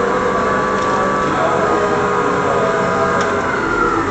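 CNC lathe running, its spindle drive giving a steady whine made of several tones, one of which rises in pitch near the end.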